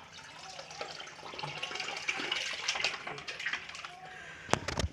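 Water running and splashing, an uneven hiss that grows louder in the middle, with a few sharp knocks near the end.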